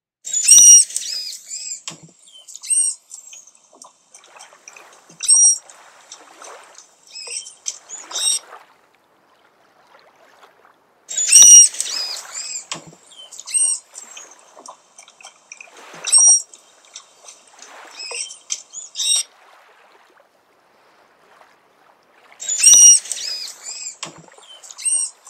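Manatee vocalizations: short, high-pitched chirps and squeaks in clusters, the same sequence repeating about every 11 seconds.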